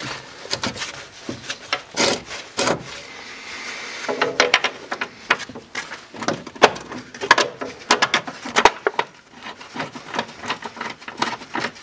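Irregular metallic clicks, knocks and rubbing as gloved hands work an adjustable front camber arm and its bolts into place on a Nissan 350Z's suspension. The clicks come thicker from about four seconds in.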